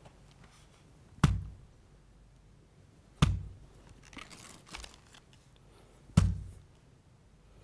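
Three heavy punch impacts from a Muay Thai kickboxing glove, made as foley punch sounds, each a single sharp hit with a short low thud, a couple of seconds apart. Some soft rustling comes between the second and third hit.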